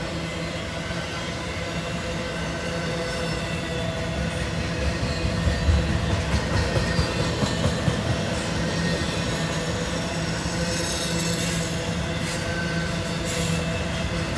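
Intermodal freight cars rolling past: steel wheels rumbling on the rails, with a quick run of clacks in the middle as trucks cross rail joints. Thin steady tones of wheel squeal sit over the rumble.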